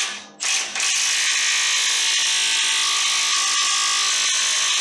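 Milwaukee M12 Fuel 1/2-inch stubby cordless impact wrench, trigger blipped a couple of times and then held, hammering steadily for several seconds to break loose a fastener torqued to about 101 foot-pounds. The fastener turns.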